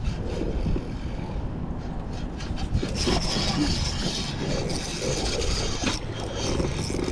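Fishing reel working under load while a hooked bass is fought. It makes a steady grinding, rubbing noise that gets stronger about three seconds in and breaks off briefly near the end.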